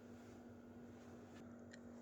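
Near silence: room tone with a faint steady hum and a couple of faint ticks.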